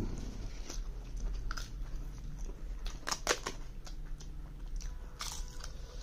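Crisp papad being snapped by hand and bitten, with chewing: several sharp crunches, the loudest cluster about three seconds in.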